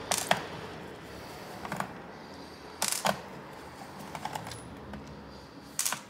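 A few small, sharp clicks and taps, about one every second or so, from Phillips screws and a screwdriver being worked against an Acer Nitro 5 laptop's plastic bottom cover while the cover screws are removed.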